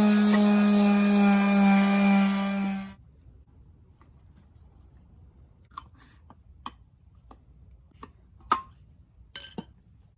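An electric power tool running with a steady high whine, switched off abruptly about three seconds in. Scattered light clicks and taps follow, with one sharper knock later on.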